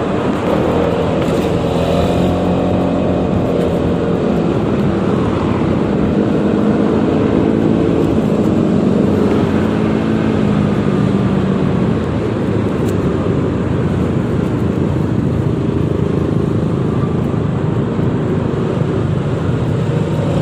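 Yamaha XMAX 300 scooter's single-cylinder engine running on its stock exhaust while riding, its pitch slowly rising and falling with the throttle over steady road noise.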